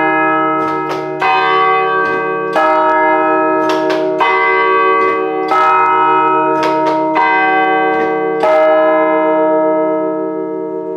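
Large church bells ringing close up in the bell tower, struck by hammers about every one and a half seconds. Each strike sets off a long, many-toned ring that carries over into the next, and the ringing fades toward the end.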